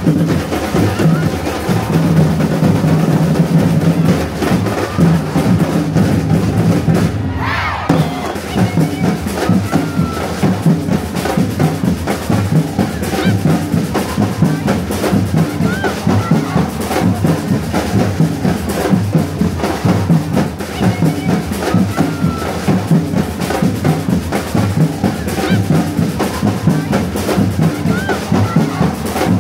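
Samba-reggae drum line playing: deep surdo bass drums struck with mallets together with snare-type drums, keeping a steady, driving rhythm.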